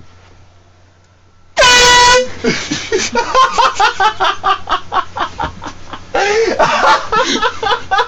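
A handheld air horn gives one short, very loud blast at a steady pitch about a second and a half in, followed by loud laughing and yelling voices.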